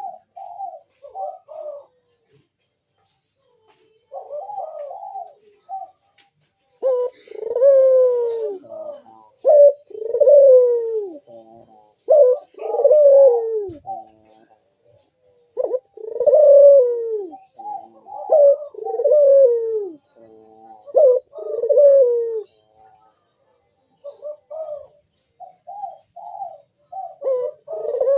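Ringneck dove (burung puter) cooing over and over. It gives short clipped notes at first, then from a few seconds in a run of longer, louder coos, each falling in pitch, with brief pauses between phrases.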